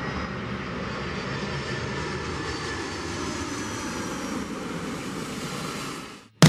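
Jet airliner engines passing: a steady rush of engine noise with faint whining tones that slowly fall in pitch, fading out near the end.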